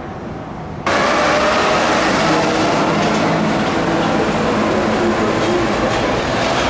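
Airport people-mover train running, heard from inside the car: a steady, loud rumble and hiss with a couple of steady humming tones. It cuts in abruptly just under a second in, over a quieter background.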